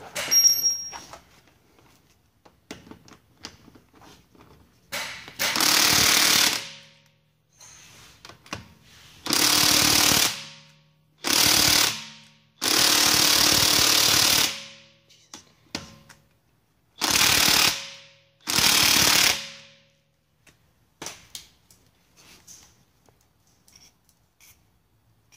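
Cordless impact wrench hammering on a seized wheel lug in six short bursts of one to two seconds each, with small metal clicks and taps between them; the lug is stuck and not coming loose.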